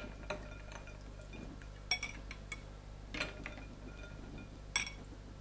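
A long-handled metal ladle clinking against a glass punch bowl and tumbler as punch is ladled out: about five sharp, ringing clinks spread through the few seconds, over a faint steady low hum.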